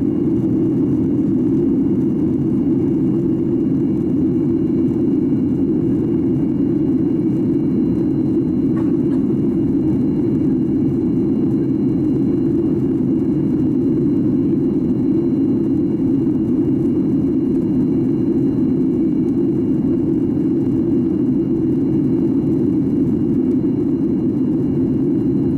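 Steady cabin noise inside a Boeing 737-800 in flight: the CFM56 turbofan engines and the airflow over the fuselage make an unchanging low hum.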